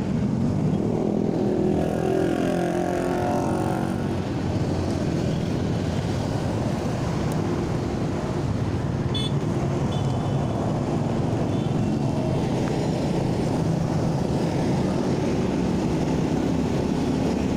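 Motorcycle ridden in road traffic: its engine running steadily under a dense, even road noise, the engine note shifting in pitch in the first few seconds.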